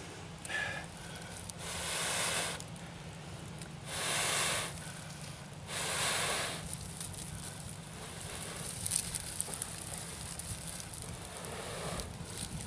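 A person blowing long breaths into a tinder bundle to bring a bow-drill ember to flame: three whooshing breaths about two seconds apart, then faint crackling from the smouldering tinder as it starts to glow.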